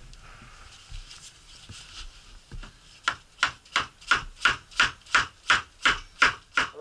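Wooden mallet tapping the wooden blocks of a saw-sharpening jig on a threaded rod: about a dozen even taps, roughly three a second, beginning about halfway through, after some faint handling knocks.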